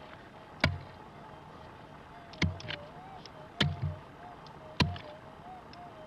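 A prospecting pick striking hard, stony soil four times, one to two seconds apart, the third strike followed closely by a lighter knock.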